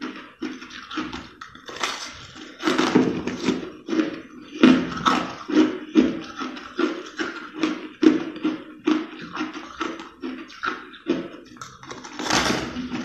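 Purple flavoured crushed ice crunching as it is chewed, a steady run of crisp crunches about two a second, with louder bites about three seconds in, around five seconds, and near the end.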